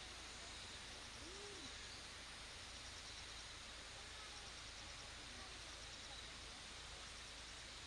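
Faint outdoor ambience: a steady hiss with a faint high, rapid pulsing and a few faint short animal calls, the clearest about a second and a half in.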